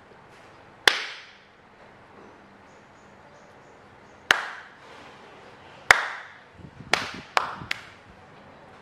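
Six sharp hand claps at irregular spacing: one about a second in, two more a few seconds apart, then three in quick succession near the end.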